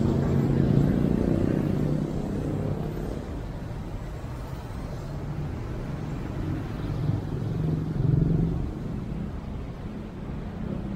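Car engine and road noise while driving in city traffic. A low engine hum swells in the first two seconds and again about eight seconds in.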